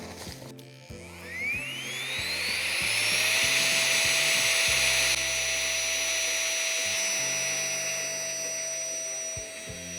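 A small electric motor, like a cordless power tool, spinning up with a rising whine and then running steadily at full speed, over background music.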